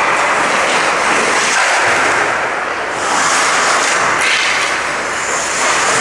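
Ice hockey skate blades carving and scraping across rink ice, a loud steady hiss that swells twice as skaters cut close by.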